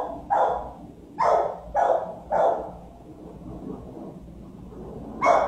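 A dog barking: four barks in the first two and a half seconds, a pause, then one more bark near the end.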